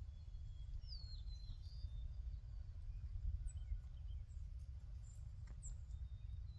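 Low, steady rumble of wind on the microphone, with a few faint, high bird chirps: a short falling chirp about a second in and a few more later.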